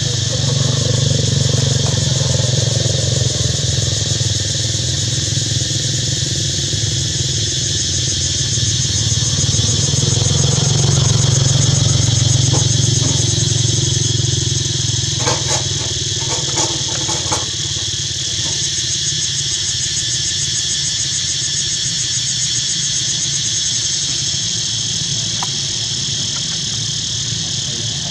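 A steady low motor-like hum runs under a constant high-pitched insect drone, with a few short sounds about halfway through.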